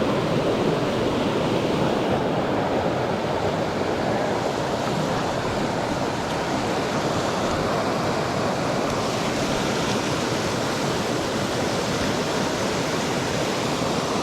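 Mountain trout stream rushing over rocks, a steady, even noise that never lets up.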